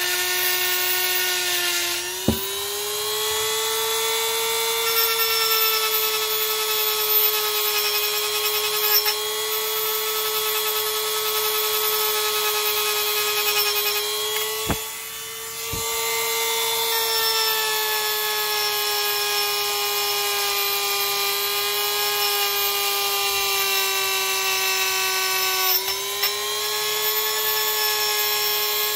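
Dremel rotary tool with a small wire brush attachment running at high speed, scrubbing corrosion out of the roller channels of an aluminum golf cart CVT clutch sheave. Its steady whine steps up in pitch about two seconds in and sags briefly a couple of times as the brush works the metal, with a few light clicks.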